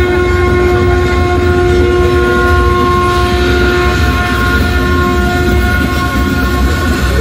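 A single long held note, steady in pitch, that fades out about six seconds in, over a constant low rumble.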